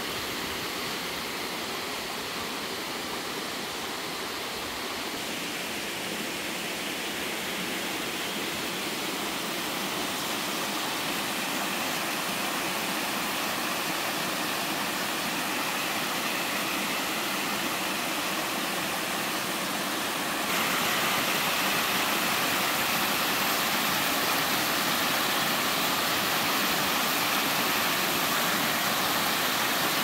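Waterfall rushing steadily into a mountain stream. The roar jumps abruptly louder and brighter about two-thirds of the way through.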